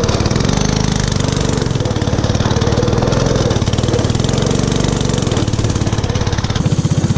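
Small gasoline engine of a converted power-chair go-kart running under load as it drives, its pitch rising and falling a few times with the throttle.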